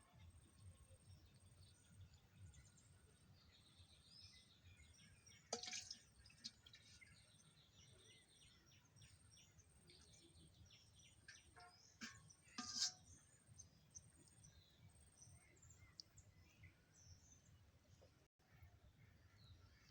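Faint outdoor ambience with small birds chirping now and then. Two brief sharp noises stand out, about six and about thirteen seconds in.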